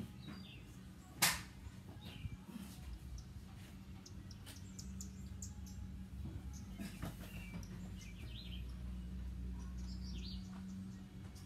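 Outdoor ambience: birds chirping briefly several times over a steady low hum, with one sharp click about a second in.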